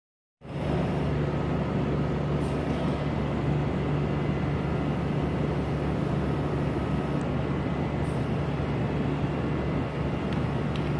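Steady machine hum and rushing air of cooling fans and ventilation, with a strong low drone and a few faint steady higher tones.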